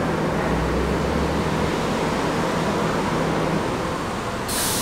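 A New York City subway train standing at an elevated station, giving off a steady rushing noise with a low hum that stops about three and a half seconds in. A short, sharp hiss comes just before the end.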